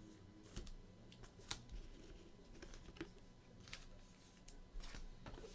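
Faint, scattered light clicks and ticks of sports trading cards being handled, slid and tapped together.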